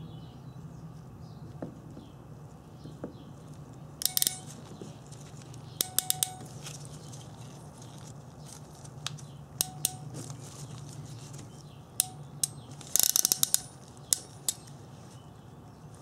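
Ancor 702010 ratcheting crimper for heat-shrink connectors clicking as its handles are squeezed down on a butt connector. Sharp ratchet clicks come every couple of seconds, with a quick run of clicks near the end, over a steady low hum.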